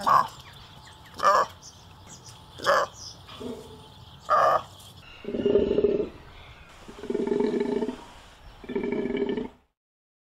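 Golden takin calling: four short, sharp calls about a second and a half apart, then three longer, lower calls of about a second each.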